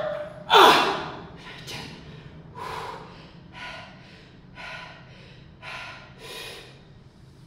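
A man breathing hard under a heavy barbell, deep into a high-rep 100 kg back squat set. A loud gasping breath comes about half a second in, then shorter, quieter breaths about once a second.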